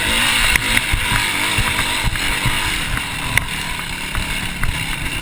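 Off-road riding noise on a rough woodland trail: steady wind rush on the microphone with uneven thumps and sharp rattles as the bike bounces over bumps and stones.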